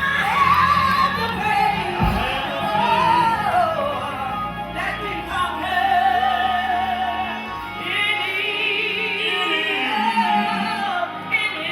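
Church singing: a voice with heavy vibrato sings sustained, wavering notes over held low instrumental notes.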